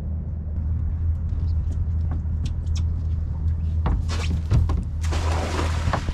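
A cast net thrown from a boat's bow: a swish and rattle of the net and its lead weights about four seconds in, then the net splashing down onto the water for about a second near the end. Under it runs a steady low hum of the boat's idling engines.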